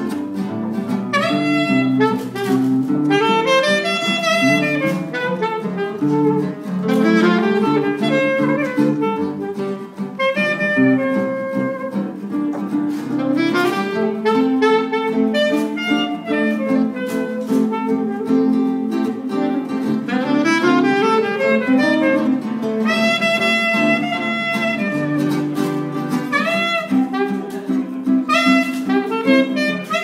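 A live trio of saxophone and two acoustic guitars playing a tune, the saxophone carrying the melody over the guitars' chords.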